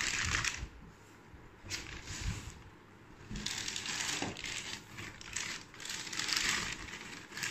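Plastic packaging rustling and crinkling in several bursts, with light clatter of hard plastic mixer-grinder parts being picked up and set down.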